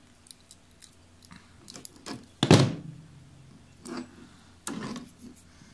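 Workbench handling sounds: a loud thunk about two and a half seconds in as metal side cutters are set down on the bench, then a few smaller knocks and rustles of tape and wires being worked around a door handle.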